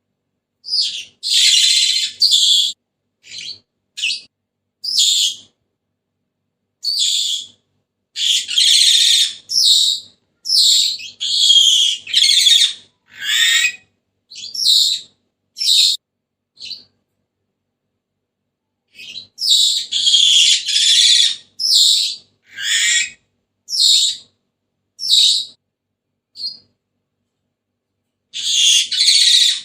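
Senegal parrot calling: a run of short, high-pitched whistles and harsh screeches in clusters. There are silent pauses of about two seconds past the middle and again near the end.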